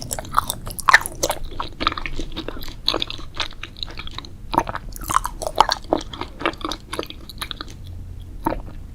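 A person chewing and biting food close to the microphone: a dense, irregular run of crunches and mouth clicks that thins out near the end.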